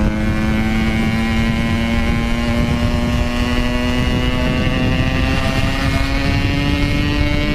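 Motorcycle engine held at high revs while riding at speed, its pitch climbing slowly and steadily, with wind rumbling on the microphone.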